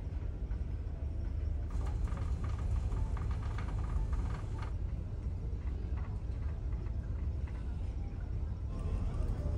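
Steady low rumble of the Pan Star Dream ferry's engines while under way, heard inside the ship. A few faint light clicks and rattles come between about two and four and a half seconds in.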